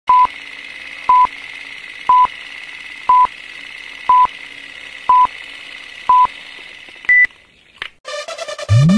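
Film-leader countdown sound effect: seven short beeps about a second apart, one per number, over a steady high drone and hiss, ending in a single higher-pitched beep. Electronic intro music with a rising sweep starts about a second later.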